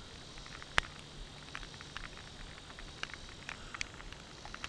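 Light rain: irregular sharp raindrop ticks close by over a faint steady hiss.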